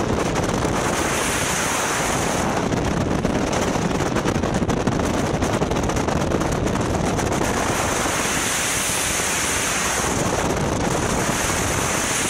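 Steady rush of wind and water from a jet boat travelling at about 80 km/h, with wind buffeting the microphone.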